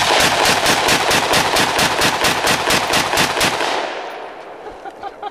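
AR-15 rifle fired in a rapid semi-automatic string, about five shots a second for some three and a half seconds, then stopping, with the shots echoing away.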